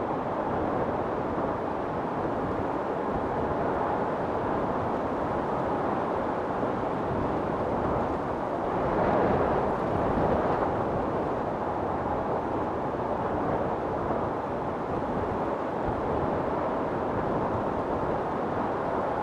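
Storm wind blowing steadily as a deep, even rush, swelling into a stronger gust about halfway through.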